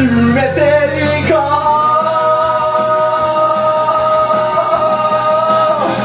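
Karaoke: a man singing into a microphone over a loud backing track. A long steady note is held from about a second in until near the end.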